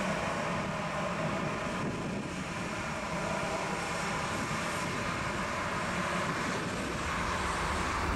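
Airbus A320's CFM56 turbofan engines running at taxi power as the jet rolls past, a steady engine noise with a faint whine over it.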